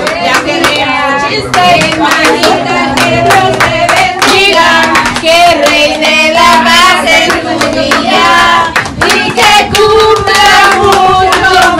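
A group singing together while clapping along in a steady rhythm.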